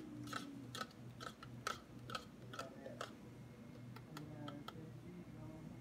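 A spoon stirring green paste in a stainless steel bowl, clicking against the bowl in an even rhythm about twice a second.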